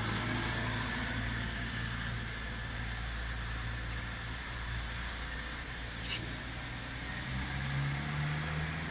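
A 70 hp farm tractor engine running steadily, its pitch stepping up about seven seconds in as it speeds up.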